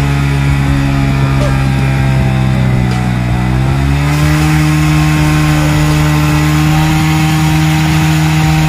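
Motorcycle engine running steadily with its exhaust blowing into a balloon fitted over the silencer. About three seconds in, the engine speed sags briefly, then rises to a slightly higher steady pitch that holds.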